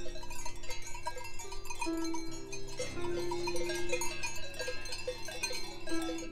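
Cowbells on grazing alpine cattle clanking irregularly, over background music with long held notes. The bells stop abruptly near the end.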